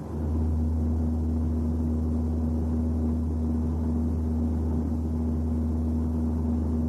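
A steady low drone with a steady higher hum held over it, starting suddenly.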